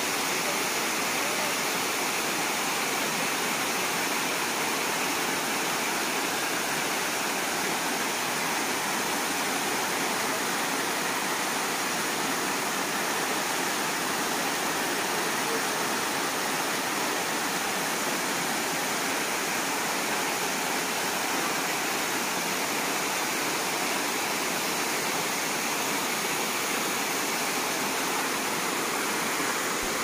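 Waterfall cascading down stepped, terrace-like rock ledges into a pool: a steady, unbroken rush of falling water.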